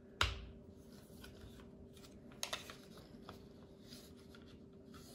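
Handling of a Glock pistol seated in a polymer MCK conversion-kit chassis, checked empty because its trigger won't release. A single sharp knock comes just after the start, then a few faint clicks about two and a half seconds in, over a faint steady hum.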